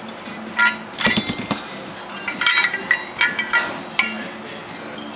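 Steel parts of a Posi Lock puller clinking and knocking against each other and the bench as the puller is taken apart. The sound is a string of sharp metallic clinks with brief ringing, bunched about a second in and again from about two to four seconds in.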